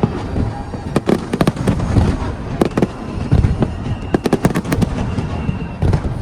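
Aerial fireworks bursting in quick succession: sharp cracks and bangs several times a second, mixed with deep booms.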